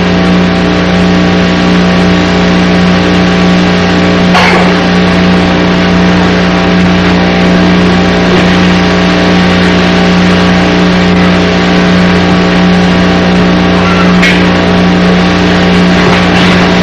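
Loud, steady electrical hum with hiss, unchanging throughout, with a couple of faint clicks.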